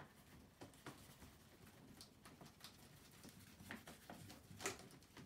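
Near silence with a few faint, short swishes of a paintbrush stroking acrylic paint onto paper, the clearest near the end.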